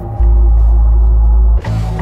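Dark, ominous soundtrack music: a loud, deep bass drone, broken about one and a half seconds in by a short, noisy hit.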